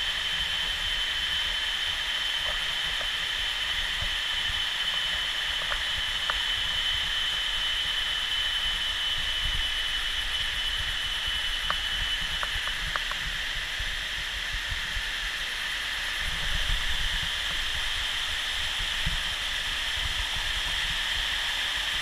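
Steady rush of shallow water running down a waterfall's rock cascades. A thin steady high tone runs alongside it and stops about halfway through, and there are a few faint knocks.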